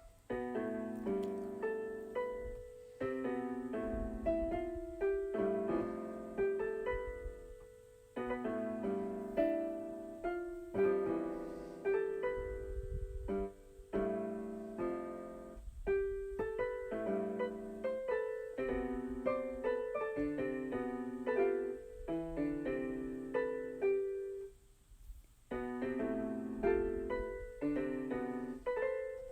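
Background keyboard music: a piano-like melody of struck notes that fade, played in short phrases with brief pauses.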